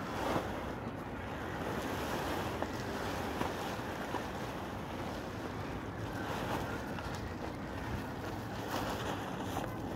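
Wind buffeting the microphone, a steady rushing noise, with a few brief rustles of a plastic bag being handled.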